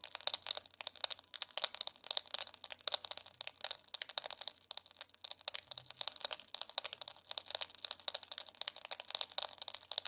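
GoPro camera making an abnormal noise: a steady stream of fast, irregular, sharp clicking and crackling, many ticks a second, that does not let up.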